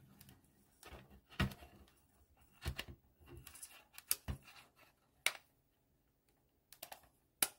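A handful of sharp, separate clicks and taps from handling the RC transmitter, its wheel and trim being worked to check the steering centre.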